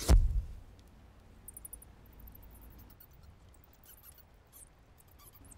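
A sudden low thump at the start, followed by faint, scattered high-pitched squeaks and small clicks: a sound-effect cue for a magical trick.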